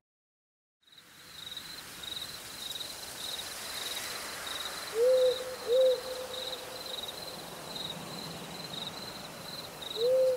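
Night ambience: an owl hooting, a pair of short hoots halfway through and another just at the end, over crickets chirping in a steady, fast, high pulse. It begins after about a second of silence.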